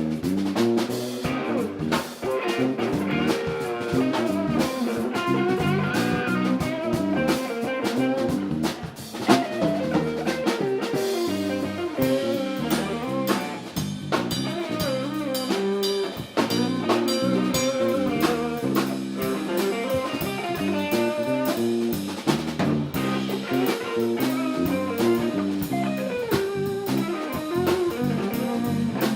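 A live band playing an instrumental groove: guitar over a drum kit.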